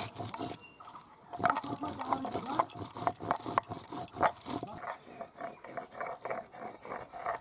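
Stone roller scraping and knocking on a Bengali shil-nora grinding slab, crushing dry red chillies in quick, uneven strokes. About five seconds in the strokes turn softer and more regular.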